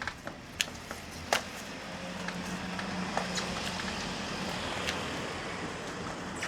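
A motor vehicle going past, its noise swelling over a couple of seconds and then easing off, with a few sharp clicks on top.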